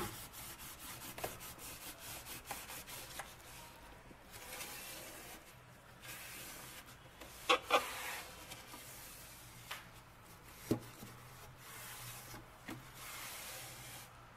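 Cotton cloth wiping and scrubbing the inside of a refrigerator, faint: quick rubbing strokes at first, then longer swipes. A few light knocks are heard along the way, two close together about halfway through.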